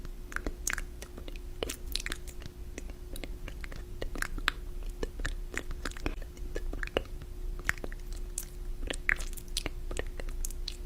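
A person chewing and biting food, with many short, irregular crunches and mouth clicks. A faint steady hum runs underneath.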